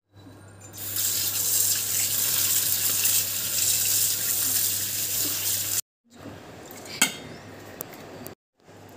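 Tap water running onto raw chicken pieces in a steel colander as they are rinsed: a steady splashing hiss for about five seconds that stops abruptly. After it, quieter handling sounds with one sharp click.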